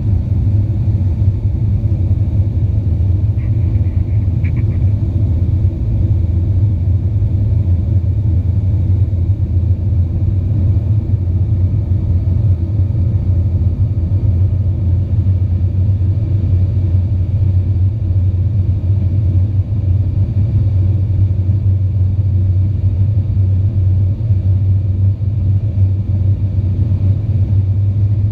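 Steady, loud low rumble inside the cabin of a British Aerospace Avro RJ85 airliner, its four turbofan engines and airflow running without change.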